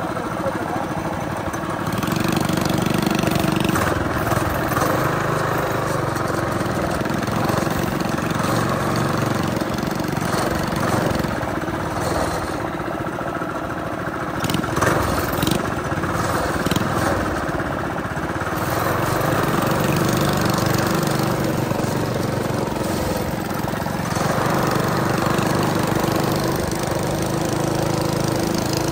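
Coleman BT200X mini bike's small single-cylinder engine running while riding, its pitch and loudness rising and falling as the throttle is opened and eased off.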